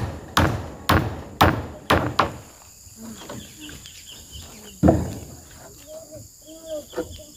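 Hammer blows driving nails through zinc roofing sheets, a quick steady run of about two strikes a second for the first two seconds, then a single further blow near five seconds in.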